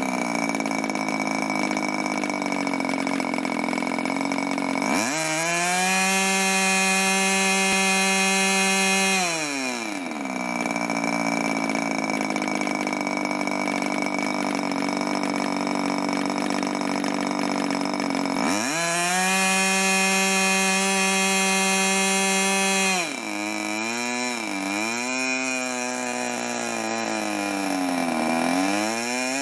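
Webra Silverline .61 two-stroke glow engine, ringed and cross-flow scavenged, swinging an 11x7 propeller. It idles, then twice runs up to full throttle and holds about 11,550 rpm for roughly four seconds before dropping back to idle. It is running nicely on a carb dialled in crisp, with a few quick throttle blips near the end.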